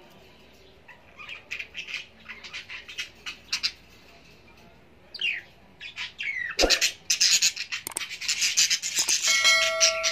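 A wooden spatula scrapes and taps in a nonstick frying pan as wet grated carrots are stirred. A sharp knock a little past halfway is followed by a burst of clatter. Near the end a glass pot lid with a steel rim is set on the pan and rings briefly.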